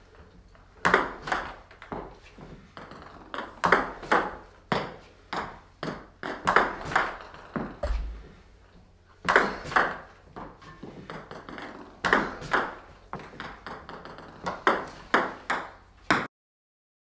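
A table tennis ball being hit with fast reverse pendulum serves, about six in a row. Each serve is a quick run of two or three sharp, ringing clicks as the racket strikes the ball and the ball bounces on the table, coming every two and a half to three seconds.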